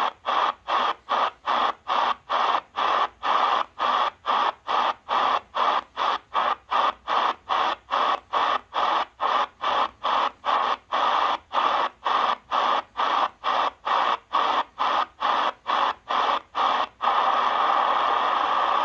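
Shortwave static from a Tecsun PL-330 portable receiver. The receiver mutes briefly on each 5 kHz tuning step as the knob is turned through a quiet stretch of the 19 m band, so the static comes in even pulses, about two steps a second. About two seconds before the end the steps stop and the hiss holds steady.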